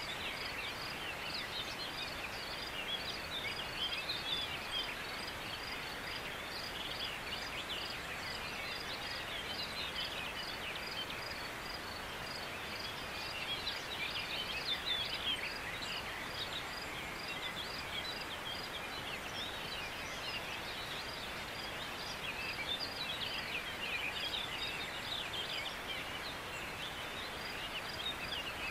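Outdoor mountain ambience: a steady hiss with birds singing all through, swelling a few times, and a regular run of short high chirps, a few a second.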